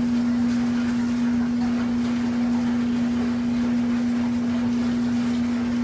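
Steady machine hum: one constant low droning tone over a faint, even rushing noise, holding unchanged throughout.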